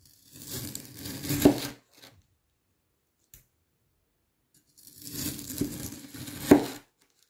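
A large kitchen knife cutting twice through a fruit-filled milk agar jelly loaf. Each cut lasts about a second and a half and ends in a sharp knock of the blade on the wooden cutting board.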